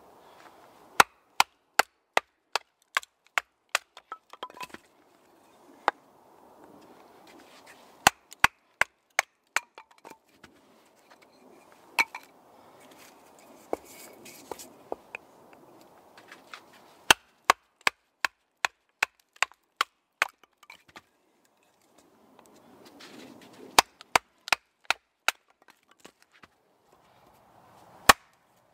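Hatchet chopping and splitting small pieces of wood into kindling on a wooden chopping block: sharp wood-on-wood strikes in quick runs of several blows, about two to three a second, with short pauses between runs.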